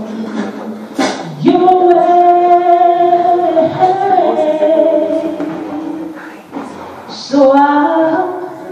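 Woman singing a slow ballad into a microphone, in long drawn-out phrases: a long held line begins about a second and a half in, and a new phrase starts near the end.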